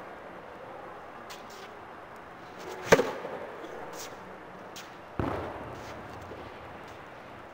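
Tennis racket striking the ball on a serve: one sharp crack about three seconds in, ringing in a large indoor court hall. A little over two seconds later comes a second, duller thump that dies away.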